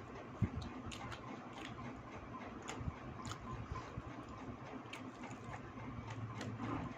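Quiet eating sounds at a meal: scattered small clicks and taps, one sharper knock about half a second in, over a low steady hum.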